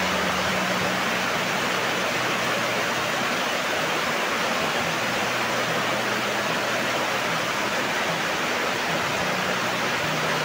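A steady, even rushing hiss, with faint low music notes underneath.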